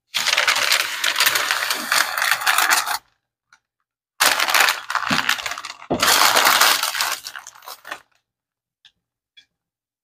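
Parchment paper crinkling and dry cornstarch chunks crunching and breaking as they are handled, in two long stretches, with a sharp knock about six seconds in.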